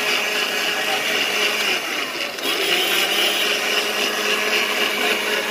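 Electric countertop blender motor running steadily, a constant whirring hum.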